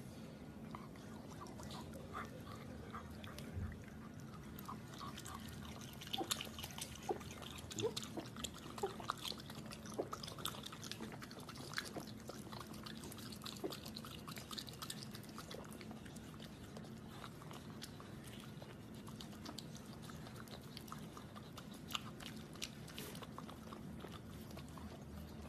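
A raccoon chewing and smacking its lips: faint, quick wet clicks that come thickest in the middle, over a steady low hum.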